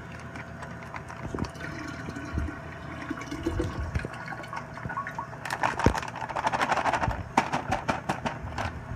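Warm water poured into a one-gallon glass jug of apple juice to top up the cider must, splashing and gurgling, heaviest from about five and a half to seven seconds in, then a quick run of sharp clicks near the end.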